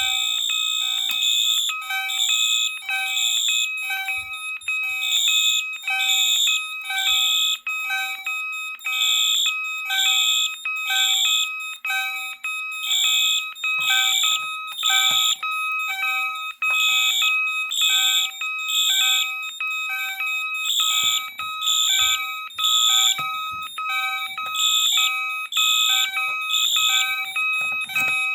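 Electronic fire alarm horns sounding off the bell circuit of a 1989 Moose Z900 alarm panel, set to high volume. One tone holds steady while another pulses on and off about once a second.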